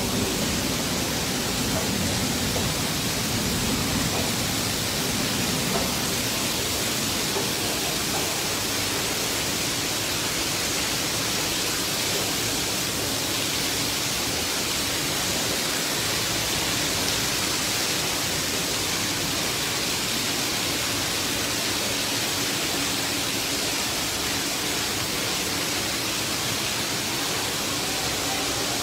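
Streams of stormwater pouring through a leaking subway station ceiling and splashing onto the tracks: a steady rushing of falling water.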